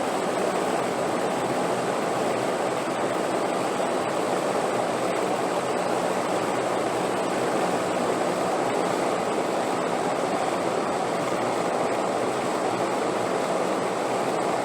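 Steady wind noise: an even, constant rushing with no gusts or breaks.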